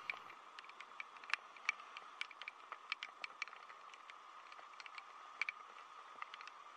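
Raindrops tapping on the camera: scattered, irregular sharp ticks, several a second, over a faint steady hiss.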